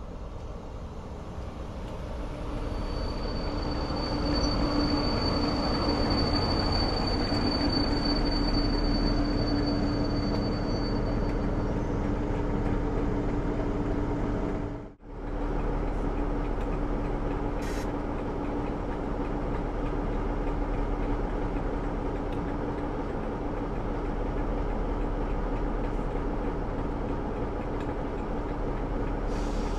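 Class 47 diesel-electric locomotives with their Sulzer twelve-cylinder engines running, hauling a passenger train past: a steady engine hum with wheel and rail noise, building over the first few seconds. A high, steady whine sounds from about three seconds in until about twelve. About halfway through, the sound cuts out for a split second and comes back.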